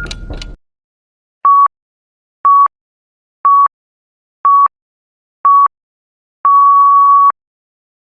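Electronic pips: five short beeps of one steady pitch, a second apart, then a longer sixth beep, in the pattern of a countdown or radio time signal. Before them, the tail of a ticking sound cuts off about half a second in.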